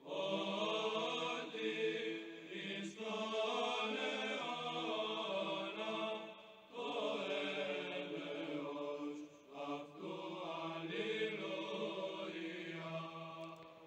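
Slow sung chant with long held notes, heard in phrases that break briefly about six and a half and nine and a half seconds in.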